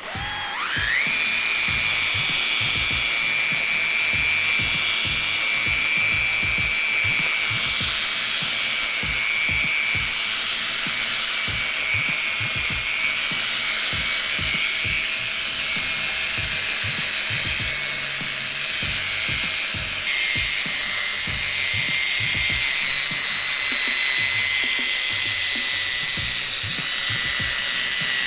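Electric drill spinning a 1500-grit sanding disc against a plastic headlight lens. It winds up to speed with a rising whine, then runs steadily with a high whine and stops right at the end.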